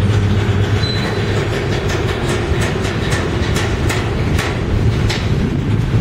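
Freight train's intermodal well cars loaded with trash containers rolling past: a steady low rumble of wheels on rail, with a string of sharp clicks and clanks from about two seconds in.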